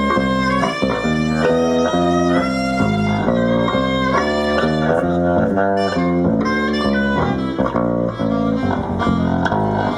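Live jazz band playing an instrumental break: a quick, melodic solo line of changing notes over a walking bass, with no vocals.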